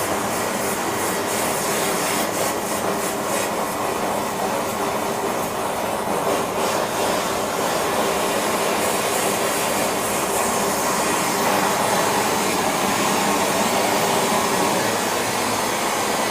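Gas torch flame burning with a steady rushing noise while heating silver shot for a pour.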